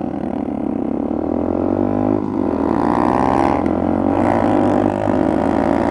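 Motorcycle engines running under way, a deep steady drone whose pitch rises as the bikes accelerate, about two and a half seconds in and again near the end.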